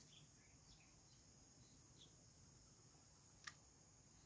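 Near silence with faint, steady high-pitched insect chirring, like crickets, and one faint click about three and a half seconds in.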